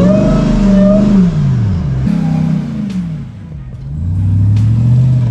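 Supercharged 6.2-litre Hemi V8 of a Ram TRX revving under load as the truck tries to climb a rock ledge: the revs rise, hold for about a second and fall, a shorter rev follows, the engine drops back around three seconds in, then builds up and holds again.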